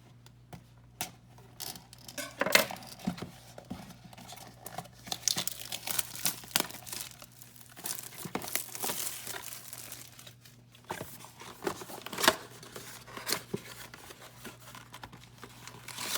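An Upper Deck hockey card blaster box being unwrapped and opened: its plastic wrap tearing and crinkling, with irregular rustling and scattered sharp clicks and taps as the cardboard box is handled.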